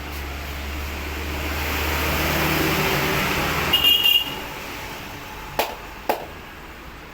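A road vehicle passes close by: its engine hum and road noise swell and then fade, with a short high-pitched beep at the loudest point. A little later come two sharp cracks about half a second apart.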